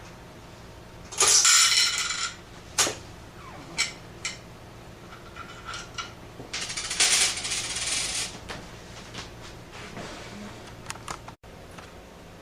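Coins rattling through an antique Western Electric 3-slot payphone's coin mechanism, in two spells of about a second each, with sharp mechanical clicks between them.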